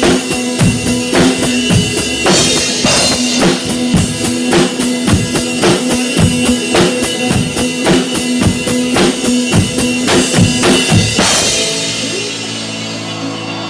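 Country band music with a full drum kit playing a steady beat. About eleven and a half seconds in, the drums stop and a held chord rings out.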